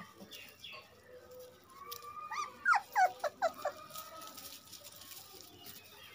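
Labrador puppies whining, with a quick run of four or five short, falling yelps about two and a half seconds in.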